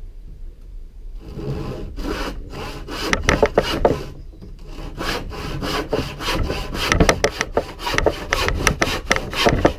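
Irwin hand saw cutting through wood in a run of quick back-and-forth strokes, starting about a second in, about 14 strokes to get through.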